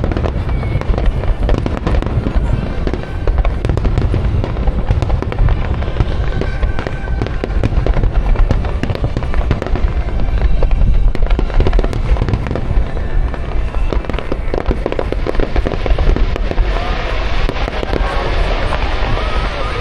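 Aerial fireworks display: a dense, continuous barrage of deep booms and crackling bursts. In the last few seconds wavering whistle-like tones rise over the booms.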